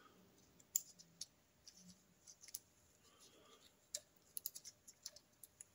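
Faint, scattered light clicks of small metal parts being handled at the alternator rotor: the locking tab washer and rotor nut going onto the crankshaft end. The clicks come singly at first, then in a quick run of several near the end.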